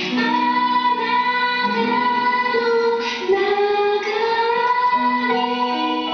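A song: a high voice sings long held notes that change pitch every second or so.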